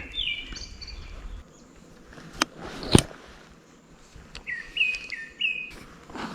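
A bird singing outdoors in short phrases that step up and down, once at the start and again about two-thirds of the way through. Two sharp clicks come in between, the second the loudest sound, and a low rumble dies away about a second and a half in.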